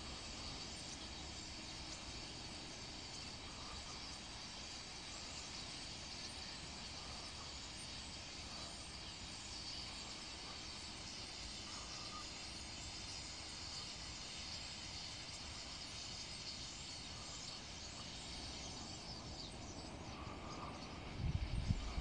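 A large flock of common starlings chattering from a reedbed roost: a faint, steady, dense twittering. Louder low rumbling buffets come in near the end.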